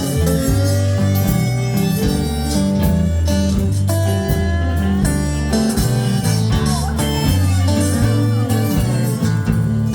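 Live blues band playing an instrumental stretch: harmonica with bending notes over guitar and a steady low bass line.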